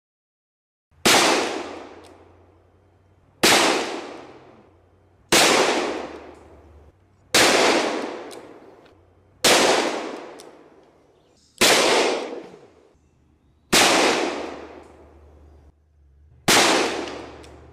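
.357 Magnum pistol firing eight single shots, about two seconds apart, each a sharp crack followed by a tail that dies away over a second or two.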